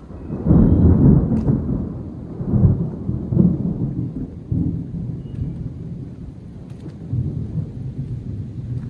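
Thunder: a loud rumble starting just after the start, rolling with several swells over the next few seconds, then fading to a lower rumble.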